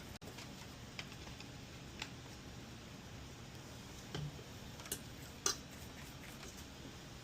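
A few faint, sharp clicks and taps of small tools against a circuit board while solder joints are being touched up, spaced a second or two apart over a quiet steady background.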